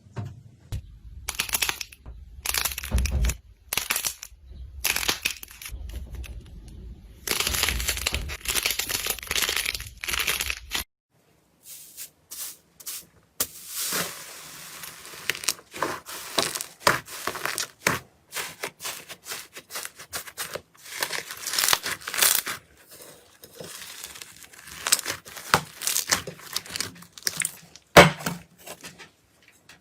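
Slime being squeezed, pressed and stretched by hand: a run of crackling, popping clicks and squishy rustles. The sound changes abruptly about eleven seconds in, turning to sparser, sharper crackles and pops.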